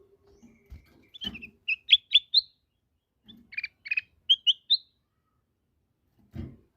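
Kutilang emas bulbul singing two quick phrases of short, rising whistled notes, with a pause between them. A few dull low knocks, near the start and again near the end.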